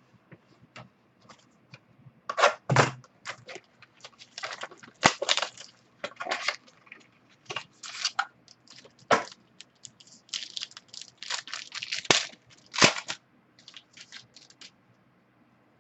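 Irregular crinkling and crackling of a plastic wrapper and card sleeves as a pack of football trading cards is torn open and the cards handled, in quick sharp bursts that come and go.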